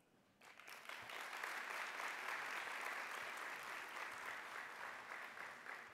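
Audience applauding: many hands clapping together, building up within the first second, holding steady, then tapering off near the end.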